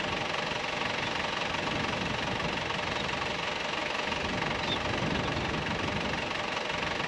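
An engine idling steadily, a constant hum that does not change.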